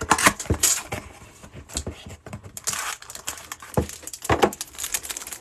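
Hands opening a small cardboard trading-card box and handling the cards inside: a run of short taps, clicks and rustles.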